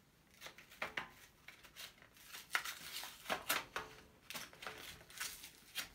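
Plastic and card packaging being handled: irregular crinkling and rustling with scattered light clicks and taps as pieces are set down on the tabletop.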